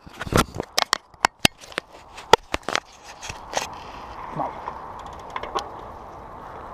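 Mountain bike rolling over a loose, gravelly dirt trail. A quick string of sharp clicks and rattles fills the first few seconds, then it settles into a steadier rolling crunch with only a few clicks.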